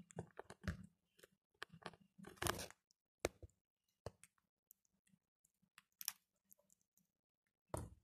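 Young parakeets crunching food with their beaks: soft, irregular clicks and crunches, with a denser run of them about two and a half seconds in.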